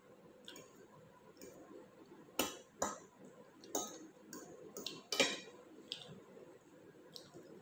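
Metal fork clinking and scraping against a plate of food: a string of about eight sharp, separate clinks, the loudest a little past the middle.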